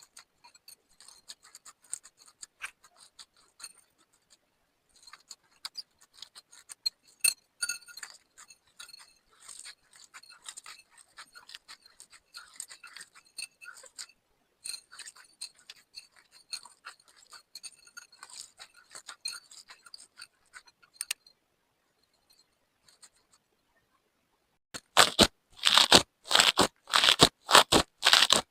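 Slime mixed with beads being worked by hand, giving faint crackling and clicking. A few seconds before the end, a louder run of rhythmic strokes starts, about three a second.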